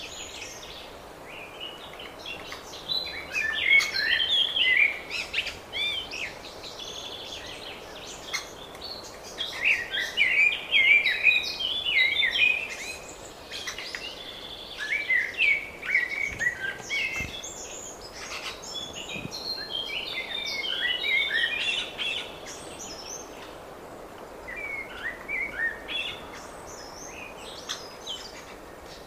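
Songbirds singing in spring: about five bursts of quick, warbling song, each a few seconds long, with short pauses between them.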